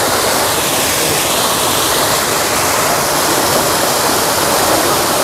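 Steady rush of water gushing from an 8-inch inlet pipe into a harvest pool packed with thrashing carp.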